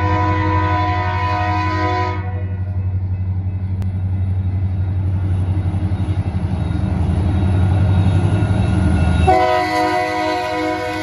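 Indiana Rail Road diesel freight locomotive sounding its multi-note air horn: a long blast that ends about two seconds in, a low steady rumble from the approaching train, then another long blast starting near the end.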